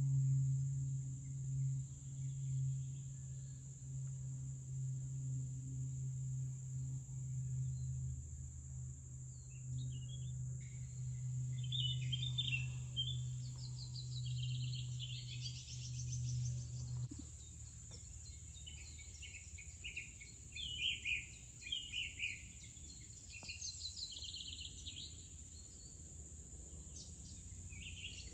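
Steady high-pitched insect chorus of crickets or katydids, with songbirds chirping repeatedly from about ten seconds in. A low steady hum underlies the first half and stops about seventeen seconds in.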